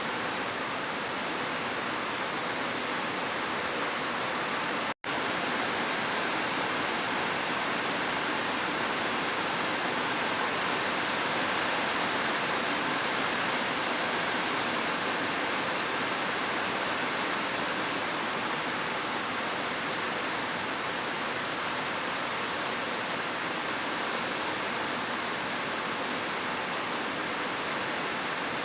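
Heavy rain falling in a steady, even hiss, broken by a split-second gap of silence about five seconds in.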